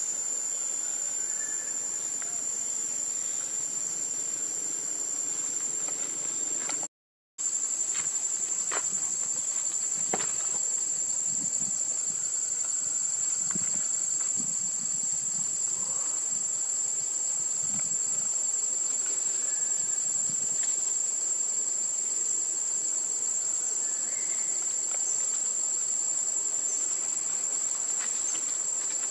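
Insects droning in a steady, high-pitched chorus. It cuts out completely for a moment about seven seconds in, then carries on unchanged.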